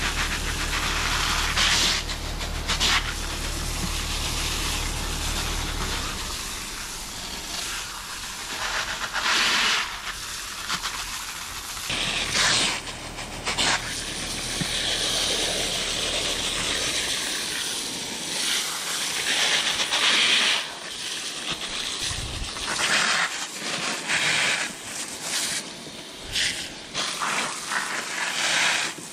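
Garden hose with a brass spray nozzle hissing as it sprays water over a raw whole pig carcass lying on plastic sheeting. The spray swells and dips in strength as it is moved over the carcass.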